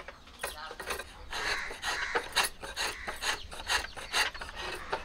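A block of jaggery being scraped into shavings with a metal blade over a wooden bowl: repeated rasping strokes, about two a second.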